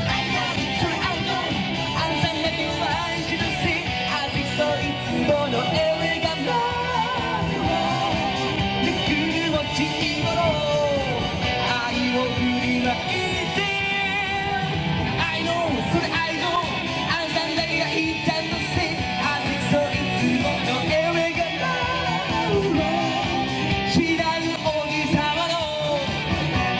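Upbeat rock-style pop song with singing over electric guitar and a steady beat.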